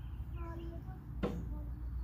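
A single sharp metallic clank about a second in: a steel log dog being set against the log on a Wood-Mizer LT10 sawmill bed, over a steady low rumble.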